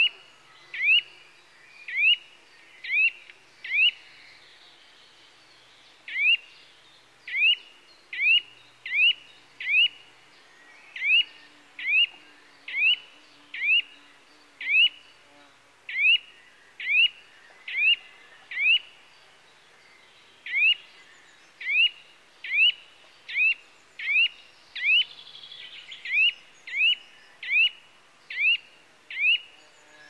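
Eurasian nuthatch singing a long series of short, rising whistled notes, roughly one a second, with a couple of brief pauses.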